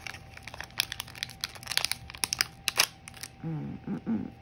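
Clear plastic sleeve of nail-polish strips crinkling as it is handled, a run of sharp, irregular crackles lasting about three seconds.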